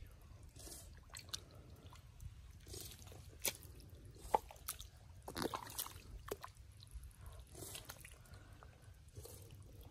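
Wet mud squelching, with scattered drips and sharp little clicks and pops. The sharpest click comes about four seconds in, and a longer squelch follows just after.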